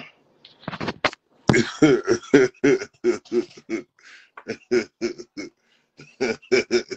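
A man laughing hard in rapid runs of short 'ha' pulses, about four or five a second, in three bouts with brief pauses between.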